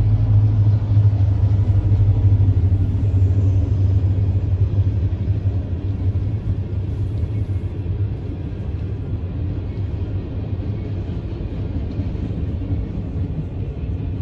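Diesel freight train passing over a road grade crossing: the trailing SD70M-2 and GP38-2 diesel-electric locomotives go by, then the tank cars roll past, with a steady low rumble that eases a little after about five seconds.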